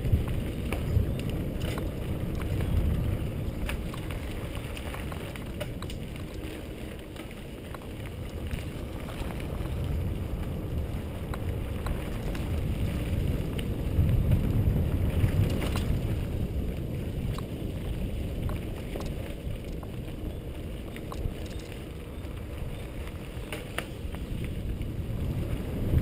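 Wind buffeting a helmet-mounted camera's microphone over the noise of mountain-bike tyres on a dirt trail, with scattered clicks and knocks from bumps.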